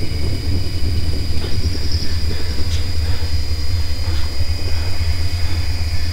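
Steady low rumbling drone with a thin high whine held above it.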